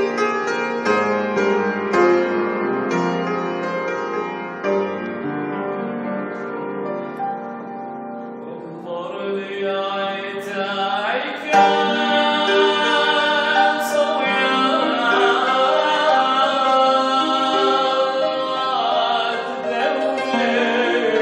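Keyboard (piano sound) playing a slow introduction of separate notes; about nine seconds in, a man's voice starts singing a hymn over the keyboard accompaniment.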